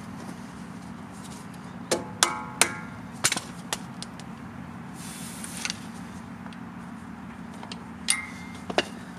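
Metal hand tools clinking and tapping against the front wheel hub and auto-locking hub of a Ford F250's Dana 60 axle as the locking hub is worked loose. The sharp clinks come singly, bunched a couple of seconds in and again near the end, and a few ring briefly like struck metal.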